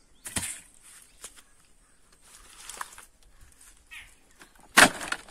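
A pickaxe thudding into grassy, leaf-littered ground twice, once just after the start and harder near the end, with soft rustling of leaves and grass in between.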